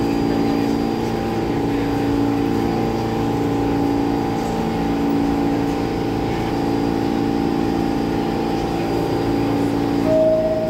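New York City subway train standing in a station, its equipment humming steadily with a slow swell about every two seconds. Near the end a single clear chime note sounds, the start of the door-closing chime.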